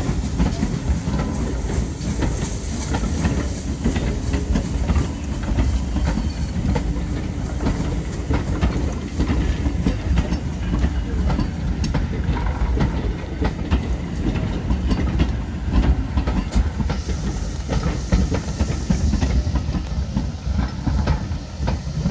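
Passenger coaches of a steam-hauled train rolling past close by: a steady rumble of wheels on the rails, with repeated clicks as the wheels cross the rail joints.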